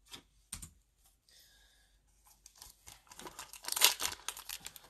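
Foil wrapper of a Panini Mosaic basketball card pack crinkling and tearing as it is opened by hand. It starts faintly about two and a half seconds in and grows loud near the end, after two soft clicks in the first second.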